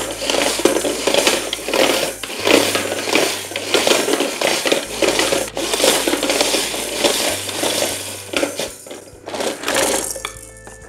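Plastic rattle balls with beads inside tumbling and rattling in the turning drum of a Fisher-Price Spin & Spill toy cement truck, set spinning by pressing its lever. It makes a busy clatter of uneven strokes about twice a second and dies down near the end.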